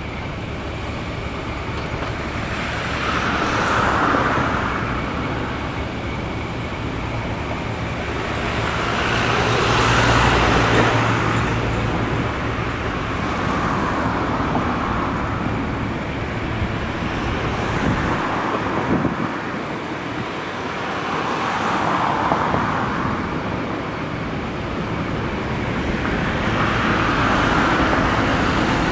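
Road traffic passing: about five vehicles swell and fade one after another, over a steady low hum of two diesel locomotives idling.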